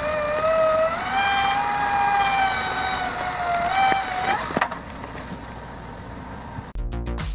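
A high-pitched motor whine holds a nearly steady pitch with a couple of small upward rises, then stops about four and a half seconds in, leaving lower machine noise. Rhythmic music comes in near the end.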